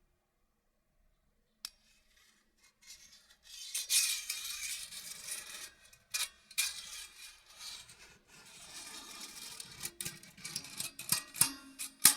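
Metal scraped and rasped in uneven strokes, broken by sharp metallic clicks that come thicker near the end, with a brief low ringing like struck metal strings. It starts after a short silence.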